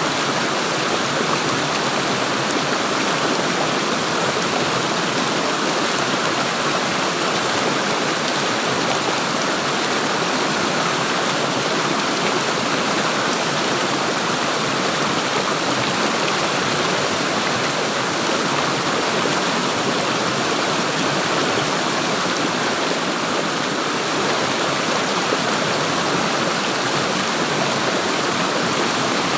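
Water in a stream flowing steadily, an even, unbroken wash of sound.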